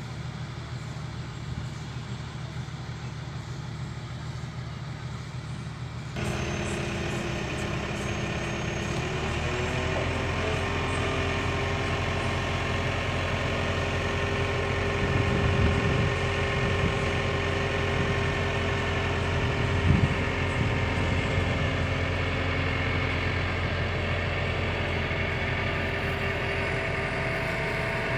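Komatsu PC160LC excavator's diesel engine running steadily. About six seconds in it grows louder and around nine to ten seconds it rises in pitch and holds there, with a louder swell around the middle and a sharp knock about twenty seconds in.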